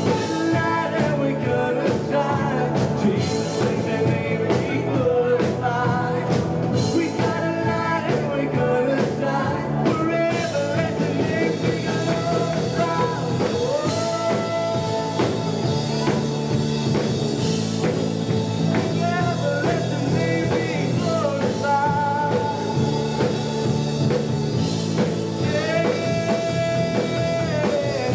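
Live worship band playing an upbeat rock-style song: guitars and a steady beat under a lead singer's voice.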